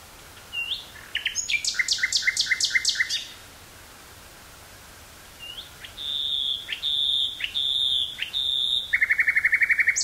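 Common nightingale singing two phrases. The first is a fast run of repeated notes that stops about three seconds in. After a short pause comes a phrase of four long, clear whistles that breaks into a rapid rattling trill near the end.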